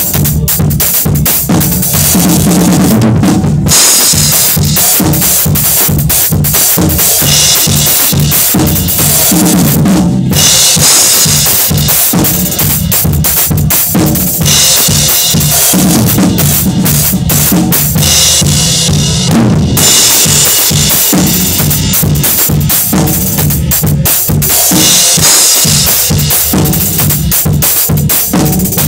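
Drum kit played hard in a continuous groove, heard close up: kick drum, snare with rimshots, and cymbals. The cymbals drop out briefly about three, ten and nineteen seconds in.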